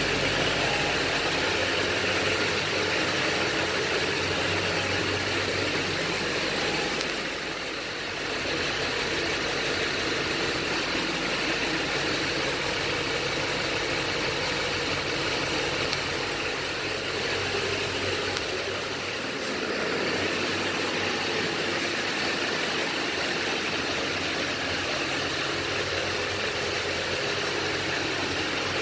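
2007 Chevrolet Silverado 2500HD pickup's engine idling steadily.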